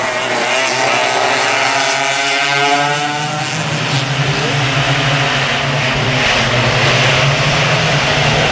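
Several vintage twin-engine racing karts running at high revs, their two-stroke engines making several overlapping notes that slide up and down in pitch as they pass. About three and a half seconds in, the sound changes to a steadier, lower engine note from a pack of karts.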